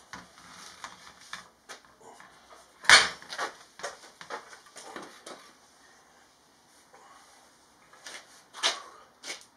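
Irregular metallic knocks and clunks as a motorcycle's old stock exhaust is jiggled and worked free of the bike. The sharpest knock comes about three seconds in, with a quieter spell before another cluster of knocks near the end.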